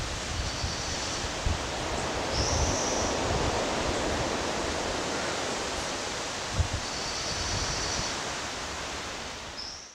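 Steady rushing noise of distant ocean surf and wind, with faint high-pitched bird calls a few times; it fades out at the very end.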